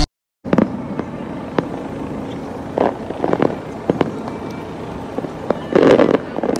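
Distant fireworks display going off: an irregular string of bangs and pops over a steady background rumble.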